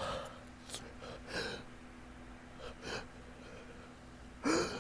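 A person's short sniffs and catching breaths, about six of them, as a sneeze builds from a tickling, pollen-allergic nose. The last, near the end, is a voiced gasp just before the sneeze.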